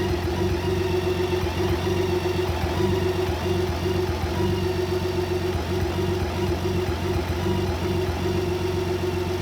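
BMW K1600B's inline-six engine idling roughly, its note uneven and faltering. It is a rough idle with no fault codes, which the owner suspects may come from bad fuel, the plugs or the exhaust.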